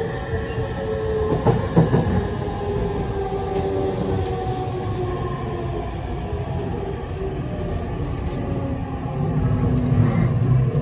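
Tokyu 7000 series train (later-batch 7112F) with a Toshiba IGBT VVVF inverter, heard from inside the passenger car: the motor and inverter whine sounds as several tones that slowly fall in pitch as the train slows, over steady wheel and track rumble. A couple of rail-joint clacks come about two seconds in, and the low rumble grows louder near the end.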